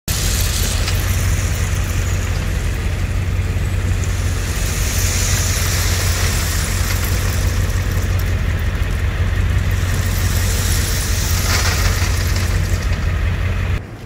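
Heavy machinery or an engine running steadily, a strong low hum under a wash of mechanical noise, cutting off suddenly near the end.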